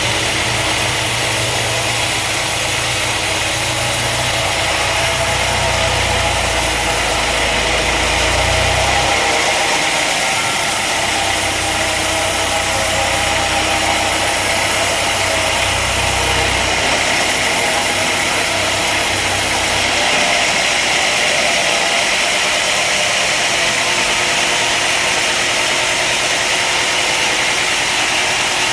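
Woodworking machinery running steadily with a loud hiss-like whir, under a low hum that drops out briefly about nine seconds in and stops about twenty seconds in.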